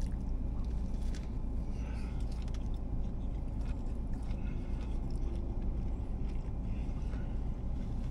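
A person chewing a mouthful of steak biscuit, with soft, irregular mouth noises. Under it runs a steady low hum inside a car.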